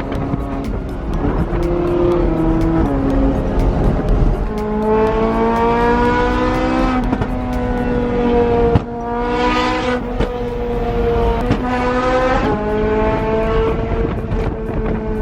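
A high-performance sports car engine pulled hard through the gears, its pitch climbing through each gear and dropping sharply at every upshift, with a sharp crack about nine seconds in.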